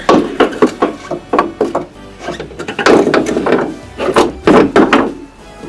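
Front strut and coil spring assembly being worked out of the wheel well: a rapid, irregular series of loud metal clunks and knocks, some with a short ring, with music playing underneath.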